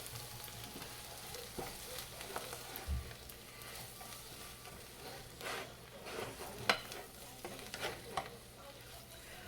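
Spoon stirring a shredded chicken and masala mixture in a frying pan, with irregular scrapes and taps over a steady sizzle.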